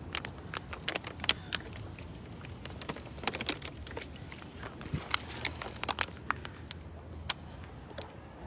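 Irregular sharp clicks, knocks and crinkles of a phone and belongings being handled while walking, with footsteps of sandals on a concrete path.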